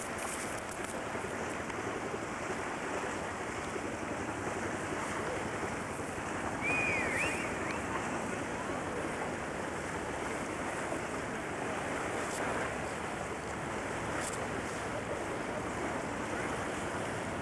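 Steady rushing noise of wind on the microphone and river water, with a brief high chirp about seven seconds in.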